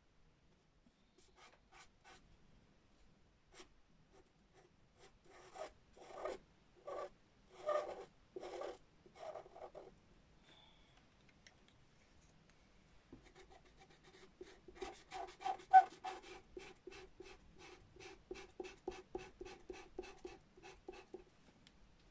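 Pastel pencil scratching on pastel paper: scattered short strokes, then after a pause of a few seconds a fast, regular run of short hatching strokes, about four or five a second.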